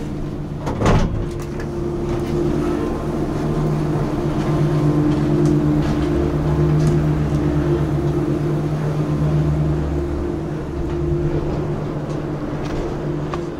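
Gondola lift station machinery running with a steady, pitched mechanical hum, with a single clunk about a second in.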